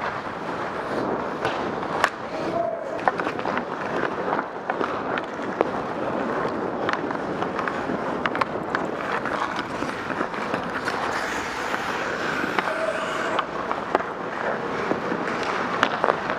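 Ice hockey skates scraping across the ice, with sharp clacks of sticks and pucks scattered throughout.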